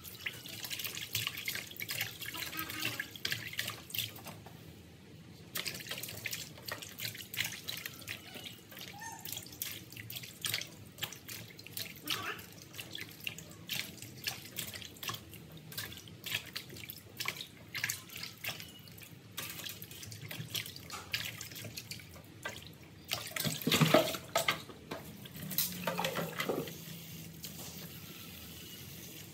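Hands swishing and rubbing leafy greens and bunched stems in a plastic basin of water in a stainless steel sink, with irregular splashes and drips. A louder burst of splashing comes about three-quarters of the way through, and near the end the tap runs steadily into the basin.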